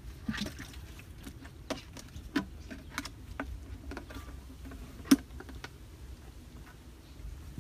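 Hollow plastic jerrycan fish trap being handled: irregular light taps and knocks, with one sharper knock about five seconds in, over a low rumble.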